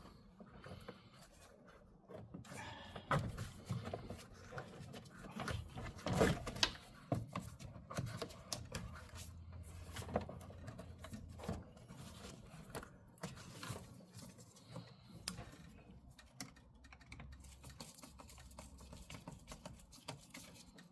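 Scattered clicks, knocks and rubbing of plastic air-intake ducting and hose clamps being handled and pushed back onto the air cleaner elbow, with the loudest knocks about three and six seconds in.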